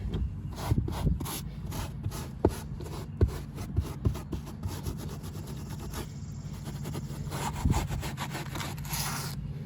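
A stiff brush scrubbing truck floor carpet in repeated back-and-forth strokes, about two a second, working freshly sprayed carpet dye into the fibres.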